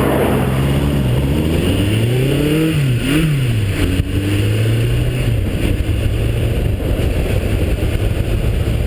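Motorcycle engine running on the move. It revs up, drops sharply, revs up again and falls back about two to three seconds in, then holds a steady pitch, with heavy wind noise throughout.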